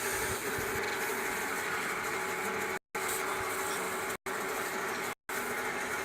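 Steady background hum and hiss with no speech, broken three times by brief drops to dead silence.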